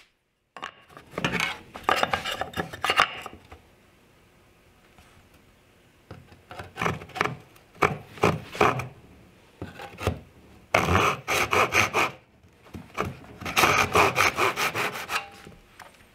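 Brass-backed backsaw cutting across a thin rabbeted wooden strip on a bench hook: quick back-and-forth strokes in four spells, with a pause of about two seconds after the first.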